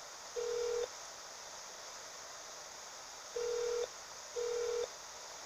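Telephone ringing tone heard down the line while a call waits to be put through to an agent: three short single-pitched beeps, one just after the start and a pair about a second apart a little past three seconds in, over steady phone-line hiss.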